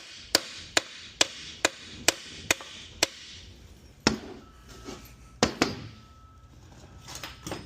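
Hammer tapping on a 6F35 transmission case to knock a dowel pin loose. About seven sharp, evenly paced taps come at a little over two a second, then several more scattered strikes, two of them close together.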